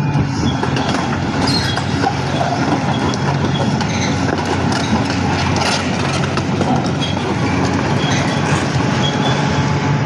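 Tracked excavator carrying a vibro hammer crawling along: its diesel engine runs steadily under the dense clatter of steel tracks, with short high squeaks now and then.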